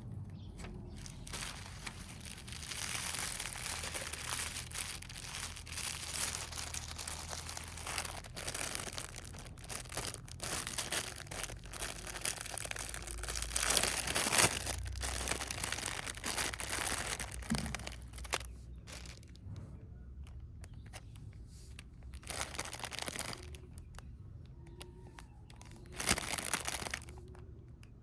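Crinkly plastic rustling and crackling as it is handled, in uneven bursts, loudest about halfway through and again briefly near the end.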